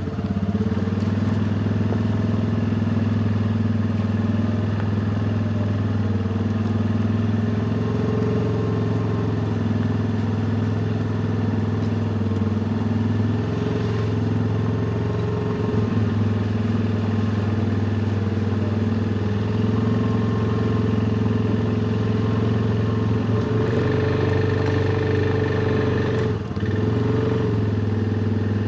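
A vehicle engine running steadily at an even speed, with a short dip in level near the end.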